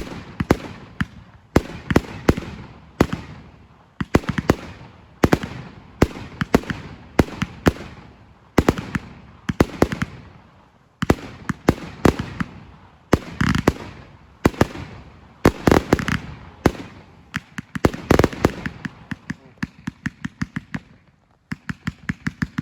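Consumer firework batteries (cakes) firing: loud sharp bangs of shells launching and bursting in clusters, with crackling tails between them. Near the end a fast, even run of shots starts at about five a second.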